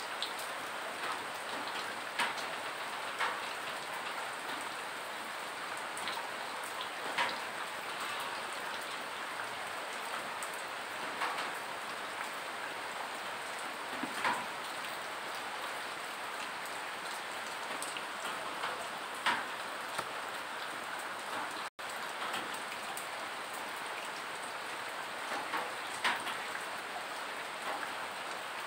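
Steady rain falling, a continuous hiss with single heavier drips landing every few seconds. The sound cuts out for an instant about three-quarters of the way through.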